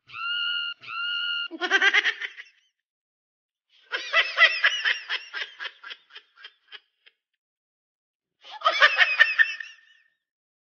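Two short, identical steady beeps, then laughter in three bursts; the middle burst trails off in shorter and shorter pulses.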